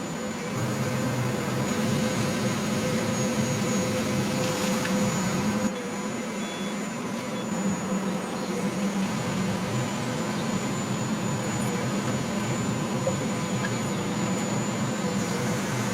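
A steady motor drone with a thin high whine over it, dipping slightly about six seconds in.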